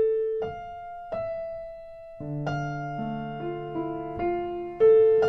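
Solo piano music: a few single melody notes, then fuller chords with bass notes joining about two seconds in.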